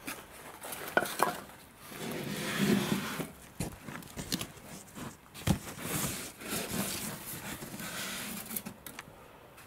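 Handling sounds from a packed wooden crate: foil bubble-wrap packaging rustling and scraping against foam and wood, with a few light knocks.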